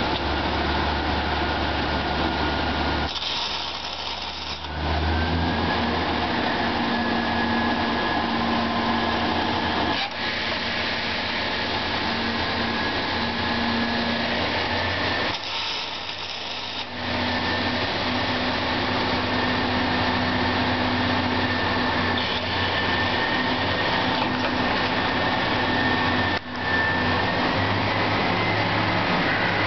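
Steady machinery din of an automatic slab-tagging machine and the steel-mill line around it, with a low hum and a thin steady whine. Twice, for a second or so, the low rumble drops away and a higher hiss stands out. A single knock comes about ten seconds in and another near the end.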